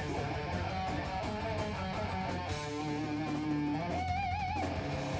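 Live band playing: electric guitars, bass guitar and drums, with quick drum hits through the first half. A long held note comes in about halfway, and near the end a held note wavers with wide vibrato.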